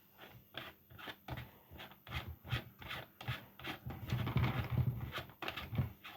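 Quick, irregular scraping, rubbing and knocking of hands working on desk fan parts, sped up, with a denser stretch of rubbing about four seconds in.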